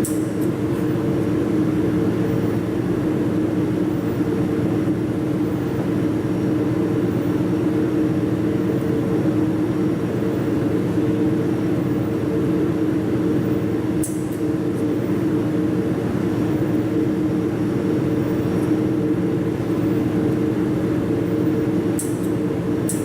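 Steady mechanical hum at an even level, with a brief sharp click about 14 seconds in and a couple more near the end.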